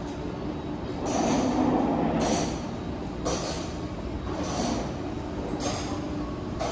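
Steady room hum with a low tone running through it, with noisy swishes recurring about once a second, the loudest between about one and two and a half seconds in.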